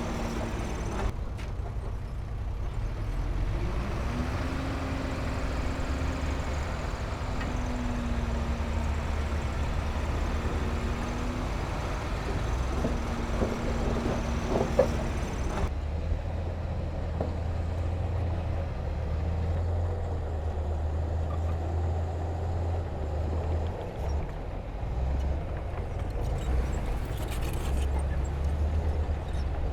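Heavy diesel engine of earthmoving machinery running with a deep steady rumble; a higher engine tone rises about four seconds in and holds for several seconds. A few sharp knocks come about fifteen seconds in, and after that the sound turns duller.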